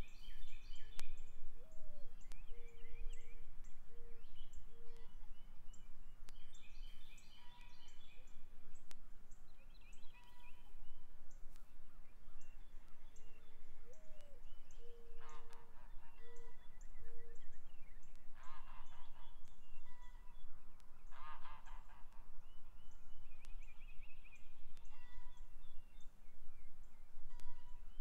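Farm birds calling in the open: songbirds chirp throughout, and a low call of several notes, a rising note then a few short ones, comes three times about 13 seconds apart. In the middle, farm fowl give a few louder, harsh calls, honking like geese.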